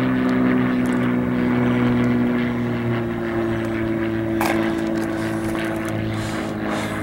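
Supermarine Spitfire's V12 piston engine droning steadily as it flies past overhead, its pitch drifting slightly. A single brief click about four and a half seconds in.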